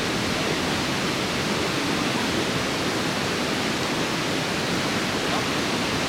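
Steady rush of river water pouring over a weir, the river running high with about 2.5 feet of fresh water.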